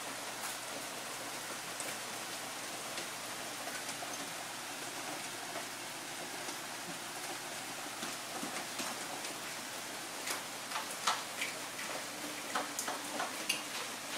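A steady hiss with scattered light clicks and rustles, growing more frequent in the second half, as golden hamsters shift and scrabble on wood-shaving bedding.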